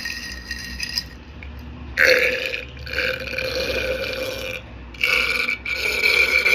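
A woman burping deliberately: two long, drawn-out belches, the first starting about two seconds in and the second about five seconds in.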